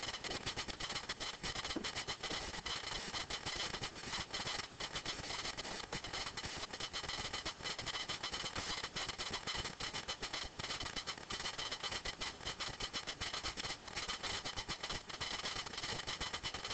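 Steady classroom room noise with a constant fine crackle and faint high steady tones.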